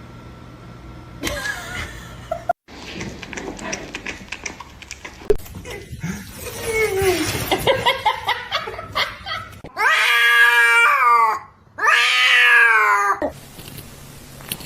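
Domestic cat yowling: a drawn-out, falling meow in the middle, then two long, loud, wavering yowls one after the other.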